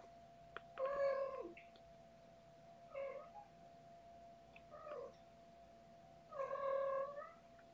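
Cat meowing four times: a longer call about a second in, two short ones, and the longest near the end, the calls dropping in pitch as they end.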